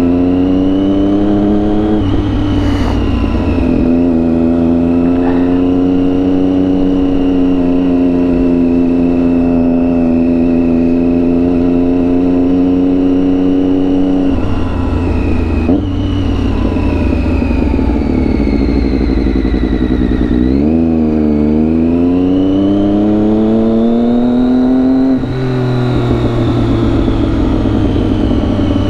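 Motorcycle engine on a moving bike, running at a mostly steady pitch with a few abrupt drops in pitch at gear changes. About two-thirds of the way through it slows, then accelerates, its pitch climbing for several seconds before dropping suddenly at an upshift.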